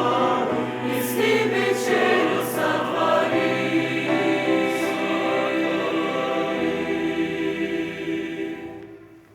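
Church choir singing the closing bars of a Russian hymn, ending on a long held chord that dies away near the end.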